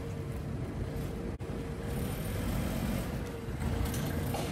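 Car engine running at low speed as a hatchback pulls slowly away, with a steady low rumble and faint street noise.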